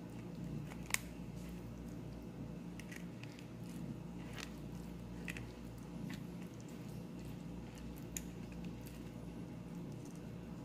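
Silicone spatula pressing cooked mushrooms against a stainless-steel mesh strainer, squeezing the sauce out of them: soft squishing and scraping with scattered light clicks, the sharpest about a second in, over a steady low hum.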